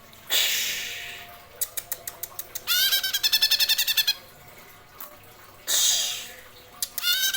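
Cucak hijau (greater green leafbird) singing: harsh, rasping calls alternating with fast rolling trills of repeated rising notes, the 'geroll' roll. A scatter of short ticks comes between the first call and the first trill.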